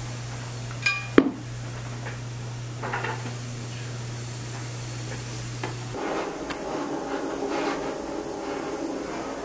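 Small metal hand tools tapping and clinking at a jeweller's bench, with a sharp ringing metallic ping about a second in, over a steady low hum. About six seconds in the hum stops and a steady, rough buzz takes over.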